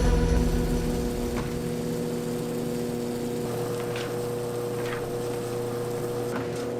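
A steady low hum held on a few fixed pitches, like a running machine, with a few faint light clicks.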